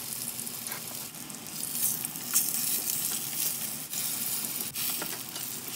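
Syrniki (cottage cheese pancakes) sizzling as they fry in hot oil in a frying pan, with a few short knocks of the spatula turning them.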